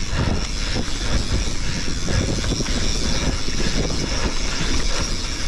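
Mountain bike riding fast down a packed-dirt trail: a steady rush of tyre and wind noise with many small rattles and knocks from the bike over the bumps.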